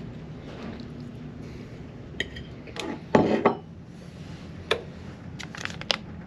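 Crockery and cutlery clinking and knocking, a few sharp clicks with a louder clatter about three seconds in, over a steady low hum.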